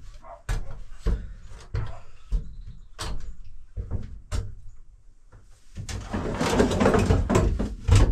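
Irregular knocks and footfalls on the bare floor of an empty van, then about two seconds of continuous rustling and clattering near the end as a folding camp bed is handled.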